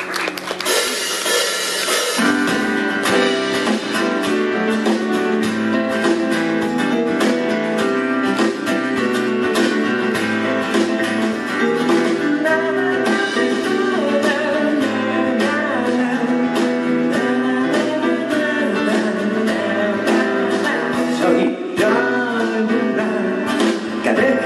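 Acoustic guitar strummed steadily in a regular rhythm, starting about two seconds in, with a man singing over it.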